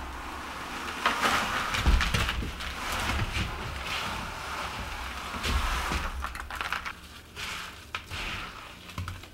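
Wet concrete mix dumped from a plastic bucket into a countertop form: scraping as it slides out, with dull thuds as clumps land. It is quieter toward the end as the mix is handled.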